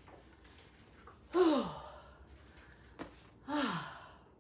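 A woman sighing heavily twice, each exhale falling in pitch, out of breath from physical exertion.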